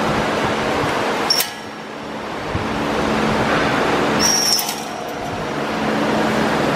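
Steady mechanical din with a low hum from a reverse-twist hexagonal wire mesh machine. Two brief high metallic squeaks come through, about a second and a half in and again about four and a half seconds in.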